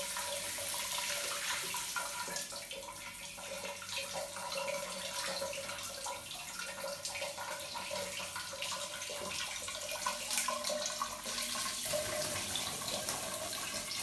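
Tap water running steadily into a tiled bathroom, with small irregular splashes.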